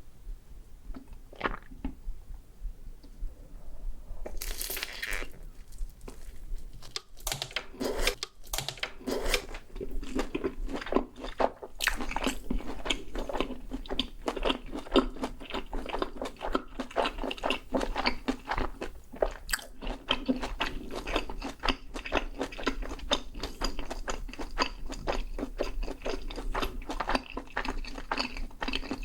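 Close-miked biting and chewing of a crunchy fried corndog. The first few seconds hold only a few small clicks and a longer rustling sound. Steady, dense crunching starts about seven seconds in.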